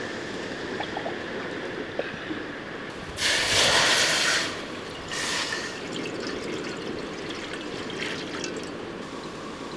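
Water poured from a steel cup into a wide aluminium pan: steady trickling and splashing, with a louder pour lasting a little over a second about three seconds in.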